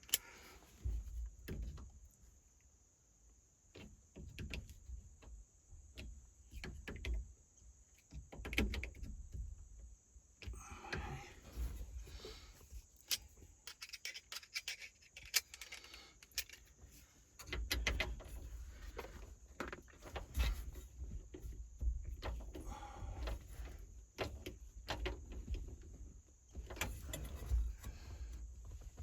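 Scattered clicks, knocks and short scrapes of hand work on a steering column: a new turn signal switch being pressed and worked down into a tight fit.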